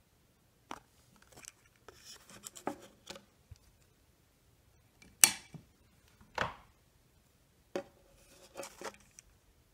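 Hands handling a cardboard-backed plastic blister pack: scattered rustles and taps, with two sharp clicks about halfway through, the first the loudest.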